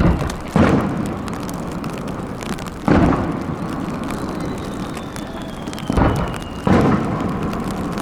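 Fireworks shells bursting with deep booms that echo: five bursts, two of them in quick pairs. A faint falling whistle is heard between the bursts.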